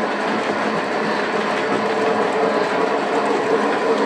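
A Gauge 1 model freight train, hauled by a model steam locomotive, rolling past close by: a steady clatter of wagon wheels on the track, with a faint steady hum underneath.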